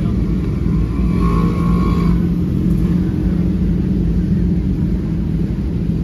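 Road traffic: a steady low rumble of car engines running on the street.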